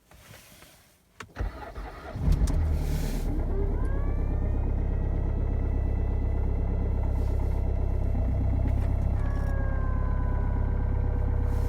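Opel Astra H 1.7 CDTi four-cylinder turbodiesel started from cold at −24 °C with no glow-plug preheat: a click, about a second of starter cranking, and the engine catches about two seconds in. It then settles into a steady diesel idle, with a whine rising in pitch soon after it catches.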